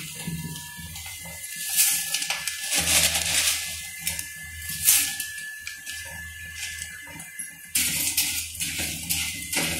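Chopped corn frying in a kadai, a hissing sizzle broken by sharp scrapes of the spatula against the pan, louder for the last two seconds.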